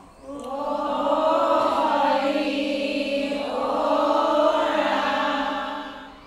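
A group of women singing a devotional folk hymn together, calling "O Raam!" in two long, drawn-out phrases.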